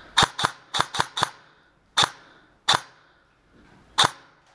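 Airsoft gun firing single shots, eight sharp snapping reports: five in quick succession in the first second or so, then three more spaced out over the next three seconds.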